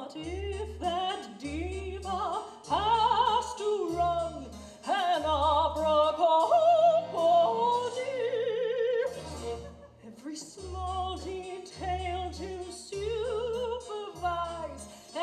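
A woman singing operatically in a high soprano voice with a strong vibrato, over instrumental accompaniment with steady, regularly repeated bass notes.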